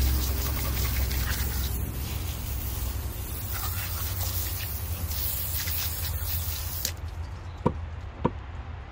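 Garden hose spray nozzle hissing as water rinses a whole white bass on a plastic cutting board, cutting off suddenly about seven seconds in. Two sharp knocks follow, about half a second apart.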